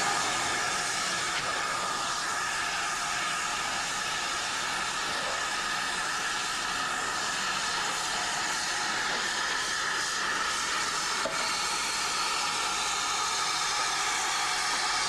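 Steady, even hiss of steam from a standing steam tank engine, with no chuffing rhythm.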